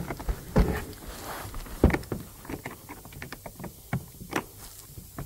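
Irregular clicks and light knocks of plastic parts being handled while an electrical connector is fitted to a BMW 2 Series door panel, with a few sharper knocks about two seconds in and again near the end.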